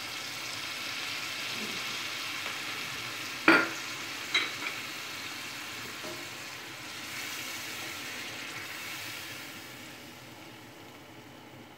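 Tomato sauce sizzling as it hits hot oil in a pan and is stirred with a wooden spoon, the sizzle slowly dying down toward the end. Two sharp knocks, one a little over three seconds in (the loudest) and a softer one about a second later.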